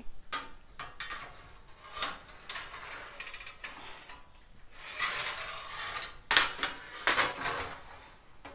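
Wire metal grill rack clattering and scraping against the oven as it is slid in, with a run of irregular metal clicks and two loud knocks about six and seven seconds in.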